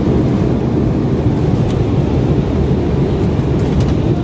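Steady low rumble of airliner cabin noise in flight, engines and rushing air, during the descent toward landing.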